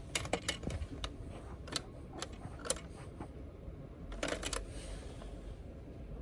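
Small hard objects clicking and tapping: a quick cluster of clicks at the start, single clicks over the next few seconds, and another quick cluster a little past four seconds.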